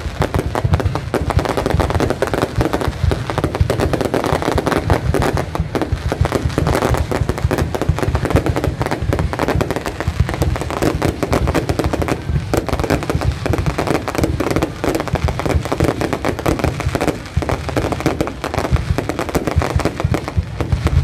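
Fireworks display: a dense, continuous barrage of aerial shell bursts and crackle, many reports a second with a heavy low boom underneath.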